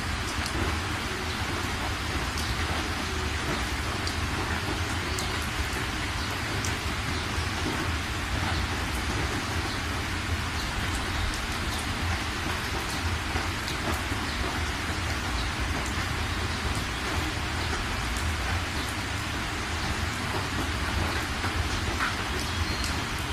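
Heavy rain falling on a moving car's windshield and roof, heard from inside the cabin, with scattered drop ticks over a steady low rumble of the car on the road.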